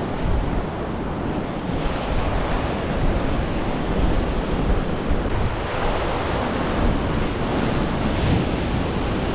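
Ocean surf washing steadily against the shore, with wind buffeting the microphone.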